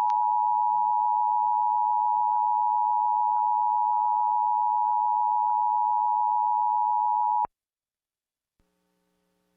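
Emergency Alert System attention signal: the steady two-tone 853 and 960 Hz alarm that precedes the test message. It cuts off suddenly about seven and a half seconds in, and a faint low hum follows near the end.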